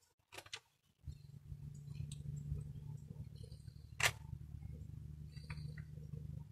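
Plastic BMX pedal parts being handled and fitted together: a few light clicks and one sharp click about four seconds in, over a steady low hum.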